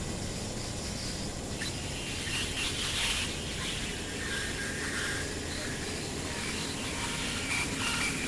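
Harsh noise drone music: a steady, dense wall of hiss and low rumble, with short crackles and flickering high chirps coming and going above it.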